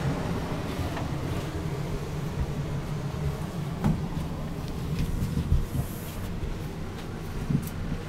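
Rooftop RV air conditioner running with its fan on high, a steady low rumble and hum. A few short knocks and rustles from a handheld microphone being carried about two-thirds of the way through.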